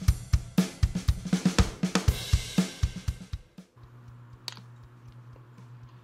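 Background music with a steady drum-kit beat and cymbals, which stops about three and a half seconds in; after it only a faint steady low hum with a single light click.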